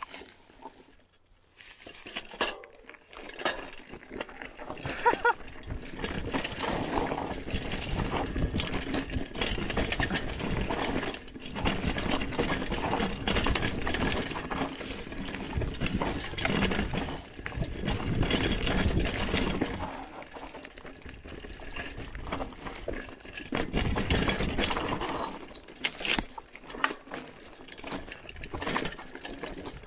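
Hardtail mountain bike riding down a dirt trail: tyres rolling over soil and rocks with the chain and frame rattling and clattering over the bumps. It starts after a short quiet moment about a second and a half in, and swells and eases with the terrain.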